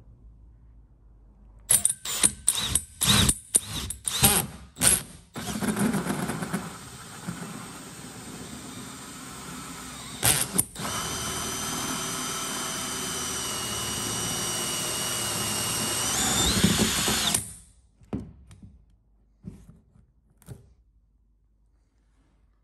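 Milwaukee cordless drill driving a hole saw through the plastic top of a tank: several short trigger bursts to start the cut, then a steady run of about twelve seconds with a motor whine that speeds up near the end before stopping. A few light knocks follow.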